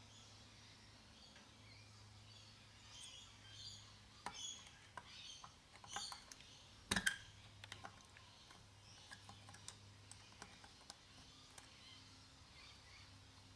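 Quiet background with faint bird chirps and a few light clicks and taps of small brass carburettor jets and parts being handled, the loudest a sharp double click about seven seconds in.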